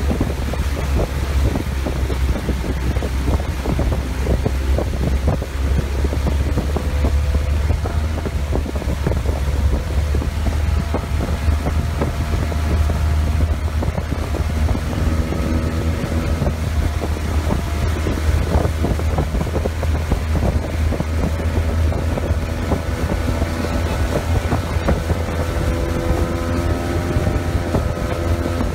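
Motorboat engine running steadily under way, a deep low drone. From about halfway through, a steadier higher hum joins it.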